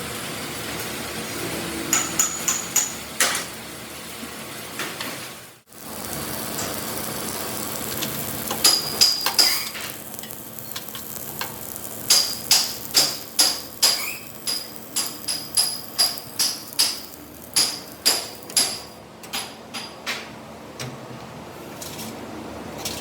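Hammer blows on metal, each with a ringing note. A few scattered strikes come first, then, after a brief break, a steady run of about two blows a second.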